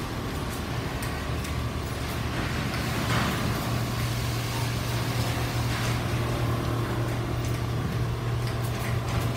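Quilting machines running on a factory floor: a steady mechanical din with a low hum that grows stronger about three and a half seconds in, and scattered clicks and knocks.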